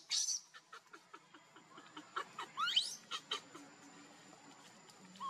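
Infant macaque crying in distress: short shrill squeals at the start and a run of rising squeals about two and a half seconds in, then it falls quieter.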